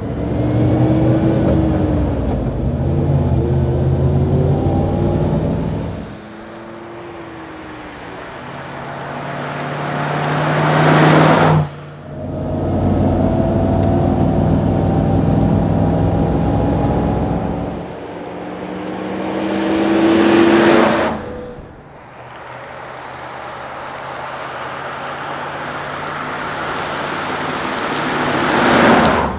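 1975 Range Rover Classic's carburetted 3.5-litre V8 running on the road across several edited takes. Its note holds steady in some stretches and in others swells louder three times, each swell cut off abruptly at its peak.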